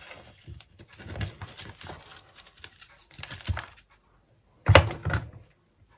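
Gritty potting mix of peat, perlite, quartz sand and fine pine bark poured and scraped from a plastic scoop into a small plastic pot, an irregular rustling and crunching. A little under five seconds in come two loud knocks a split second apart.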